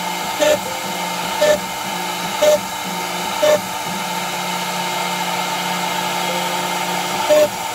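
Rovo CNC router's spindle running steadily while its bit cuts a textured pattern into a pine board. Short louder bursts come about once a second for the first few seconds, then there is a steady stretch, and one more burst comes near the end.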